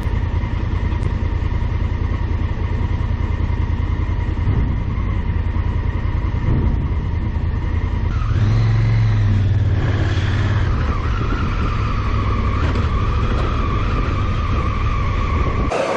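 Motorcycle engine running under way, its firing pulses steady and low. About eight seconds in it pulls harder, rising in pitch and level.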